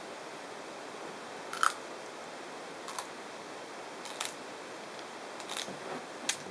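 Leopard tortoise biting into a spineless prickly pear cactus pad: a handful of short, crisp crunching snaps, the loudest about one and a half seconds in, over a steady hiss.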